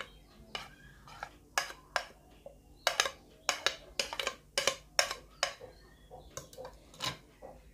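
A spoon clinking and scraping against a plate and a bowl in a string of irregular sharp clicks, as fried potato, onion and cabbage are pushed off into beaten egg.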